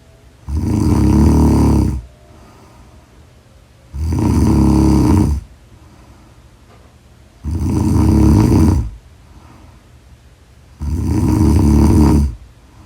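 A sleeping person snoring loudly and regularly: four long, rough snores of about a second and a half each, one every three and a half seconds or so, with quieter breathing between them.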